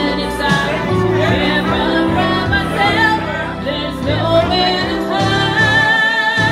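A woman singing into a handheld microphone, amplified through a PA, over a loud musical backing track.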